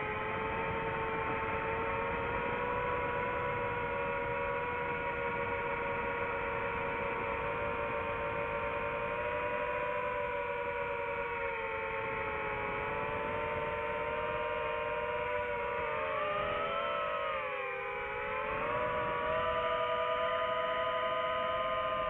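FPV racing drone's motors and propellers whining, several close pitches holding steady with throttle. About two-thirds of the way through they dip briefly, then rise again.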